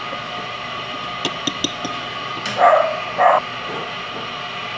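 A dog barks twice in the background over a steady hum. Just before the barks come a few light clicks, like plastic toy figures being handled.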